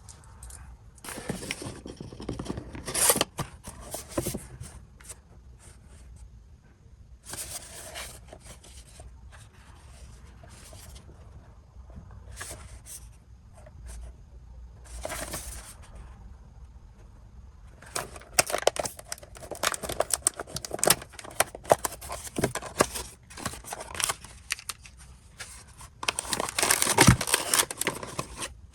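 Blind-box packaging being opened by hand: wrapping torn in short bursts, then a long stretch of dense crinkling and rustling of the packaging, loudest near the end.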